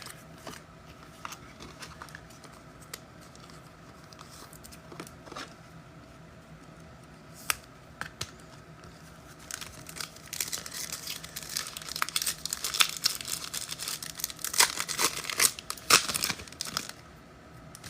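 Foil trading-card pack wrappers being torn open and crinkled, with a few light clicks in the first half and dense crackling through the second half.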